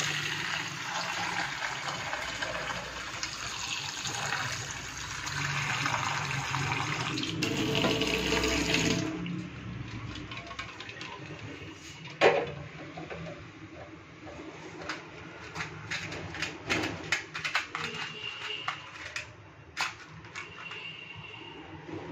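Water from a tap pours into a steel pan holding eggs, a steady rush, until the flow stops about nine seconds in. A single loud knock follows as the metal pan is set down, then a run of sharp clicks and taps.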